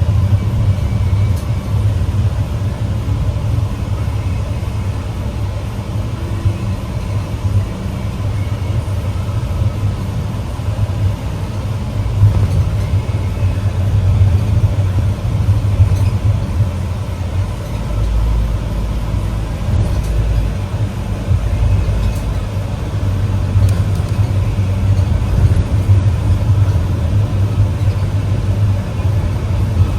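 Motor vehicle running: a steady low rumble of engine and road noise.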